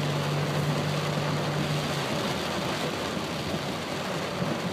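Storm rain falling on a moving car's roof and windshield, heard from inside the car, with tyres running on the wet road. A steady low hum stops about two seconds in.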